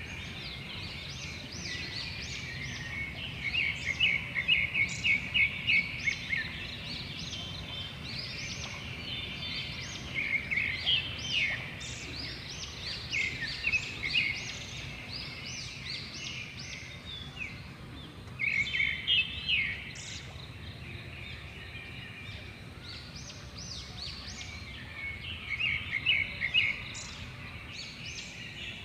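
Several birds chirping and twittering in quick runs of high notes, louder in bursts every several seconds, over a steady low outdoor hum.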